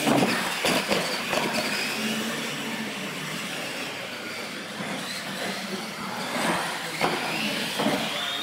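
Radio-controlled monster trucks racing on a concrete floor: their electric motors whine, rising and falling in pitch, with several sharp knocks as the trucks hit the ramps.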